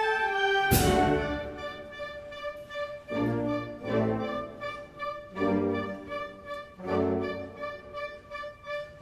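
Band music, a slow solemn march of the kind played at Good Friday processions. A held chord gives way to a single bass drum and cymbal stroke about a second in, followed by slow swelling chords from the brass.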